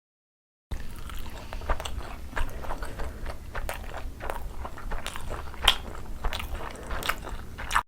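Someone biting and chewing momo dumplings, a quick run of many short mouth clicks that begins suddenly under a second in and cuts off abruptly near the end.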